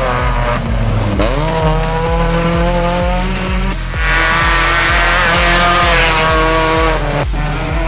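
A Hyundai rally hatchback's engine revving hard, rising about a second in and breaking twice for gear changes, laid over background music with a steady beat.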